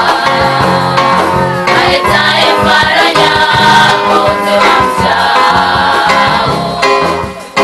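Girls' school choir singing a gospel song together, with a brief pause between phrases near the end.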